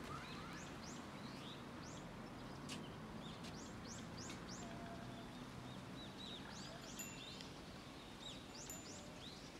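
Small birds chirping: many short, quick calls, several a second at times, over a faint steady background hum.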